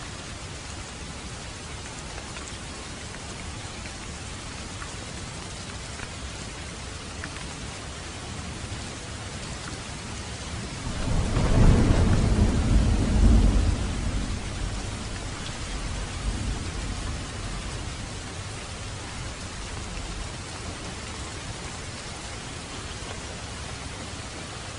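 Steady rain falling, with a roll of thunder that swells up a little before halfway, peaks for a few seconds and rumbles away.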